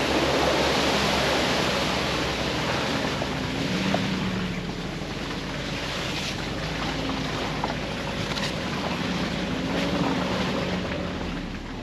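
Jeep engine running at low speed on an off-road trail, with a steady rush of wind noise on the microphone that eases after the first couple of seconds, and a few light clicks.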